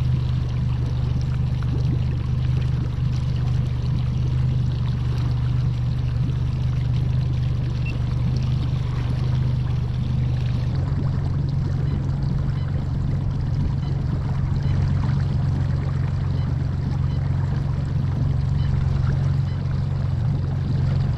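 A boat's outboard motor running steadily underway, with water rushing along the hull; its tone shifts slightly about halfway through.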